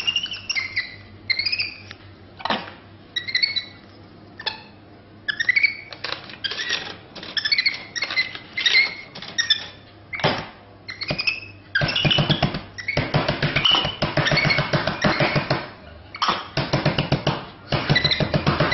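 Capuchin monkey giving short, high chirping squeaks again and again, mixed with sharp clicks and rattles at a drink vending machine's coin slot and buttons. In the last seven seconds a denser, fast, evenly pulsed rattling sound takes over.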